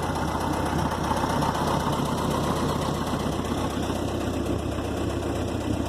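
Skid steer engine idling steadily, left running.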